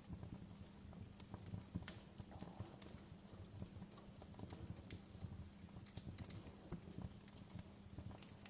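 Outdoor wood fire crackling: irregular sharp pops and snaps, several a second, over a low steady rumble.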